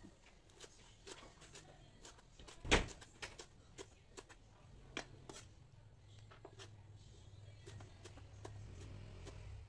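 A large kitchen knife chopping salted mustard greens on a cutting board: irregular knocks of the blade hitting the board, with one much louder knock a little under three seconds in.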